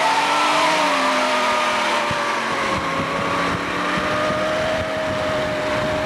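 Big-block V8s of a 1970 Buick GS 455 Stage 1 and a 1969 Camaro SS 454 at full throttle side by side in a roll race, heard from inside one of the cars over heavy wind and road noise. The engine note climbs in the first half-second, then holds steady at high revs.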